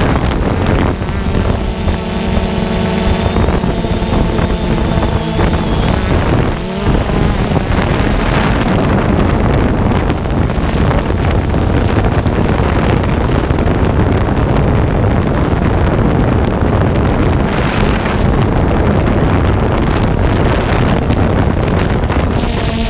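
DJI Phantom 2 quadcopter's four motors and propellers buzzing in flight, heard from the camera on the drone, with wind buffeting the microphone. A steady pitched whine in the first few seconds gives way to a rougher, noisier rush.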